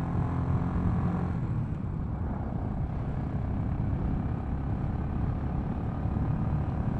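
Royal Enfield Continental GT's single-cylinder engine running steadily as the motorcycle rides along, heard over steady wind rush on the helmet-mounted microphone. The engine's even note is clearest in the first second or so.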